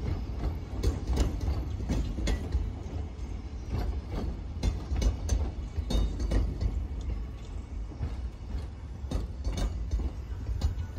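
Freight train of container flat cars rolling past: a steady low rumble with frequent, irregular clicks and clanks from the wagons.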